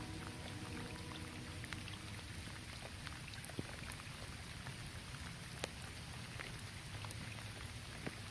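Light rain falling steadily on a roof, a continuous patter with scattered sharper single drop hits.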